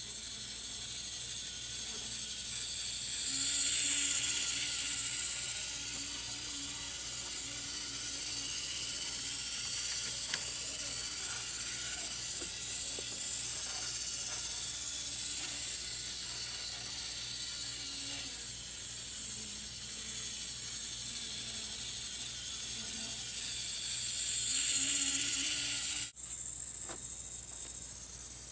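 Tiny motor and gears of a Tomytec Moving Bus System N-scale model bus whirring with a high whine as the bus drives around its roadway. It grows louder twice, a few seconds in and near the end.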